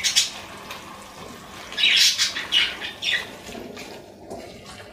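A silicone spatula stirring fresh fenugreek leaves into mutton mince in a nonstick pan over a steady sizzle. The spatula makes several short squeaky scrapes against the pan, the loudest about two and three seconds in.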